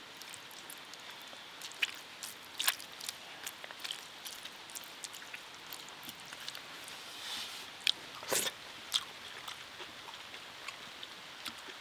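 Quiet steady hiss of light rain, with scattered soft clicks and wet ticks from rice being mixed by hand and chewed; a few sharper clicks stand out, loudest about eight seconds in.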